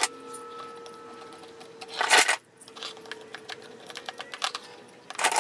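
One-handed mini bar clamps being ratcheted tight onto a glued wooden box: a quick run of clicks about two seconds in, and another near the end.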